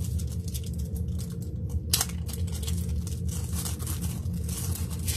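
Thin plastic wrap on a fresh pack of trading-card sleeves being torn open and crinkled in the hands: irregular crackles, the sharpest snap about two seconds in, over a steady low hum.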